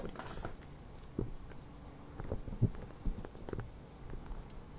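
Printed paper sheets being shifted and handled on a desk: a few soft, irregular taps and light rustles.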